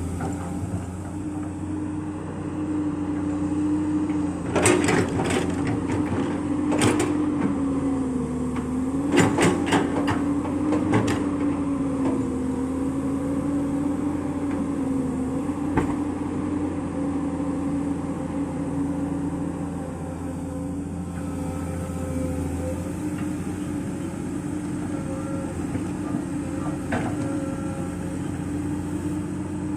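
Komatsu PC200 excavator running under load, its diesel engine and hydraulics droning steadily, the pitch sagging briefly about eight seconds in. Several sharp knocks come between about four and eleven seconds in, with single ones later.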